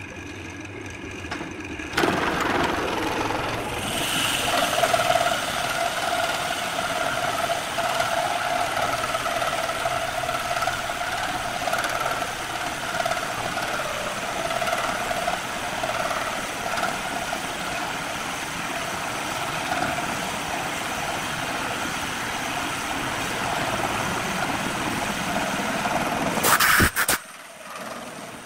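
Wood lathe running while a long-shafted hollowing tool bores into the end grain of a spinning wooden blank. The cutting starts abruptly about two seconds in as a loud, steady scraping with a whine through it. It ends suddenly near the end, leaving the lathe humming.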